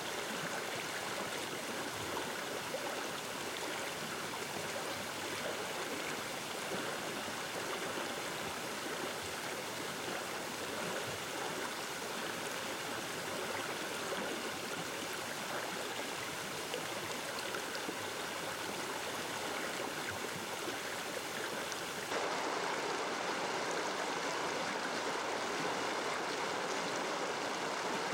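Stream water flowing steadily. About three-quarters of the way through it changes abruptly to a slightly louder, fuller rush of water.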